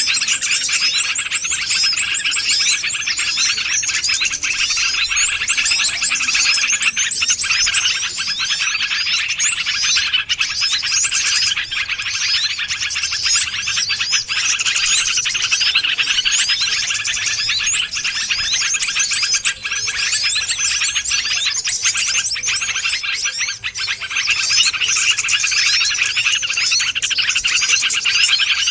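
Dense, unbroken chorus of many small songbirds chirping and twittering over one another: a bird-lure call meant to draw wild birds in.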